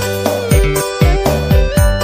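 Background music with a steady beat: plucked guitar-like notes over a deep thumping pulse about twice a second.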